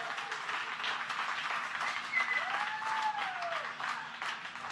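A group of people applauding with rapid clapping and cheering. About two seconds in, one voice lets out a long cheer that rises and then falls.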